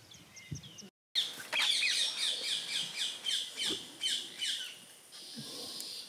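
Wild birds calling: after a brief dropout about a second in, a fast run of repeated high chirps, each sliding downward, about four a second, giving way to a steady high whine near the end.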